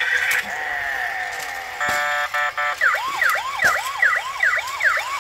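Toy fire truck's electronic sound effects: a brief electronic tone sequence, then from about three seconds in a fast warbling siren sweeping up and down about two and a half times a second.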